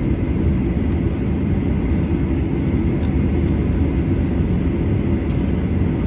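Cabin noise of a Boeing 737-800 rolling on the runway: a steady, deep rumble from its CFM56 jet engines and wheels, even in level throughout.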